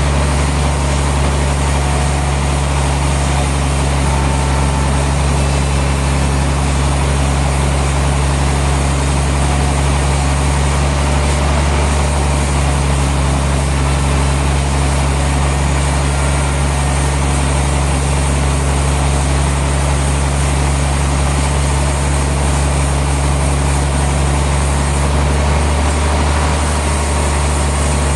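Sawmill machinery running steadily: a loud, unchanging low engine drone with a constant hiss above it.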